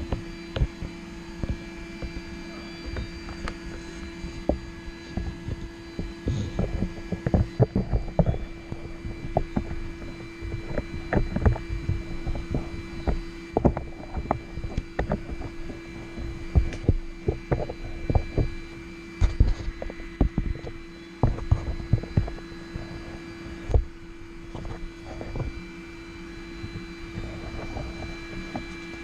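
Steady hum of a lit forge, with irregular knocks, bumps and rustling close to the microphone scattered through it.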